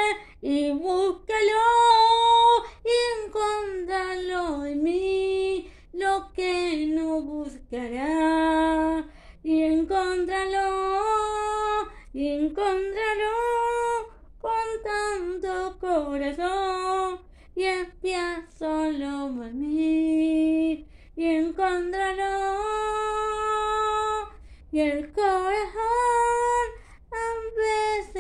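A woman singing unaccompanied, one voice holding and sliding between long notes in phrases broken by short pauses.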